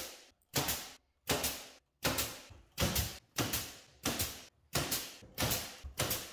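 Pneumatic brad nailer firing nails through a 1x2 pine frame and pegboard, about nine sharp shots at a steady pace of one every 0.7 seconds or so. Each shot has a short pneumatic snap.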